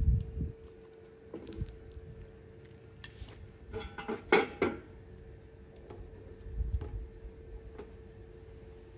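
Kitchen dishes and utensils being handled: scattered clinks and knocks with a short ring, busiest a little after the middle, plus a couple of dull low thumps and a faint steady hum underneath.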